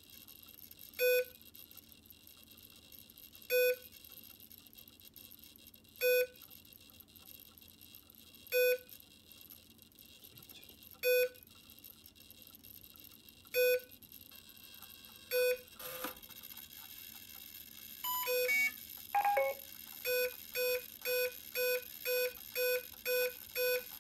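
Programming beeps from a Kontronik Kolibri 140 LV speed controller, counting through the setting steps for the BEC voltage. Single short beeps come about every two and a half seconds; near the end a short cluster and a falling tone give way to quicker beeps, about two a second.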